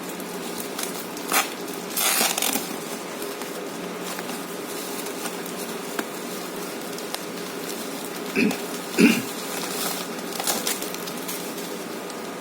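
A parcel being unpacked: several short rustles and crinkles of packaging, with a steady low hum underneath.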